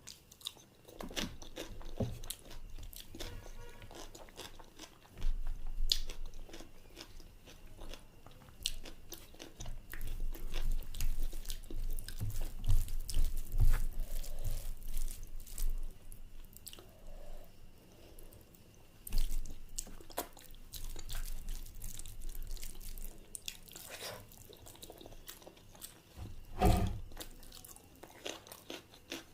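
Close-up eating sounds: a person chewing and biting food, with irregular wet mouth clicks and smacks and occasional low thumps.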